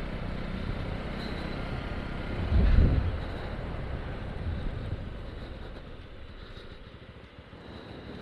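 Bajaj Pulsar NS200 motorcycle riding at low speed, with its engine and road and wind rumble on the camera microphone. There is a brief louder surge about two and a half seconds in, and the sound then dies down as the bike slows.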